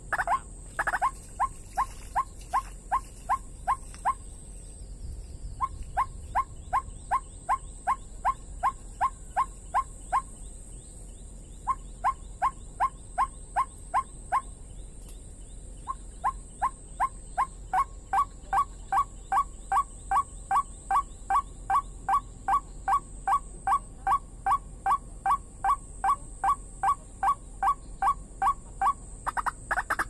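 A rail calling a long series of short rising notes, about three a second, in four bouts broken by brief pauses, with the longest bout filling the second half.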